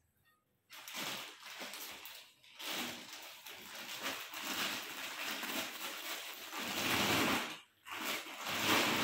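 Clear plastic wrapping crinkling and rustling as a light stand is slid out of its bag, starting about a second in with a couple of short pauses.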